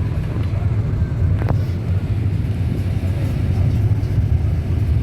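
Catamaran's engine running with a steady low rumble.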